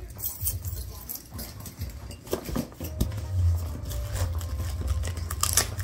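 Cardboard shipping box and plastic wrapping being handled and pulled open: scattered rustles, crinkles and clicks, with a low rumble from about halfway.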